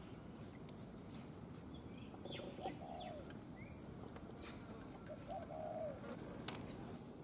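A dove cooing twice, about three seconds apart, with faint chirps from small birds and a single sharp click about six and a half seconds in.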